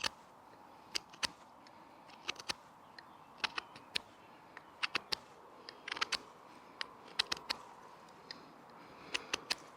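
Victorinox Ranger Swiss Army knife blade whittling shavings off a piece of wood: short, sharp cutting clicks in irregular clusters, a few a second.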